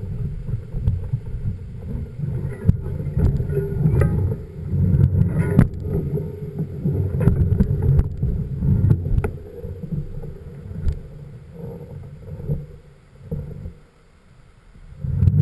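Wind rumbling and buffeting on the microphone, with scattered sharp knocks and rattles; the rumble eases off in the last few seconds.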